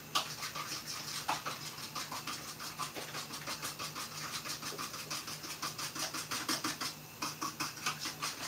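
Eggs being beaten by hand in a plastic bowl: rapid, even scraping strokes, several a second, with a brief pause near the end.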